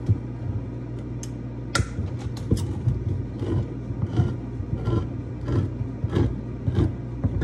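A steady low hum with a run of light knocks and clatter, about two a second, from someone handling things in a kitchen.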